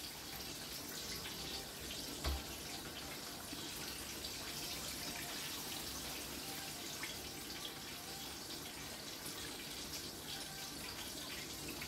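Chicken legs deep-frying in hot oil in a Dutch pot, a steady sizzle with faint crackles. A brief low knock comes about two seconds in.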